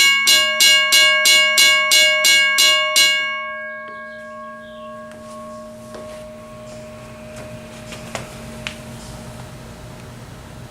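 Western Railroad Supply Co. 1203 mechanical railroad crossing bell ringing, its hammer striking the gong about three times a second. The strikes stop about three seconds in and the ring dies away over about a second, leaving a low hum and a couple of faint clicks.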